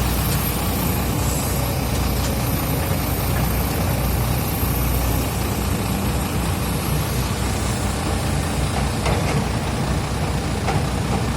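Hydraulic excavator's diesel engine running steadily, a low rumble that holds even throughout.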